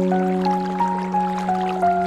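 Gentle ambient music: a low chord held throughout, under a slow melody of single notes, about one every third of a second. Faint trickling and dripping water lies beneath the music.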